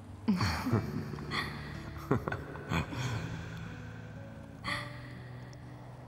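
A woman laughing softly and breathily in several short bursts, with gasping breaths between them, over soft sustained background music.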